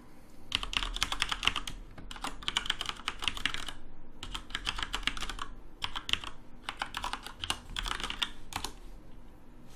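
Typing on a computer keyboard: quick runs of keystrokes in about half a dozen bursts, with short pauses between them.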